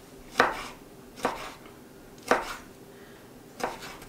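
Chef's knife dicing tomatoes on a wooden cutting board: four separate knife strokes knocking on the board, about a second apart.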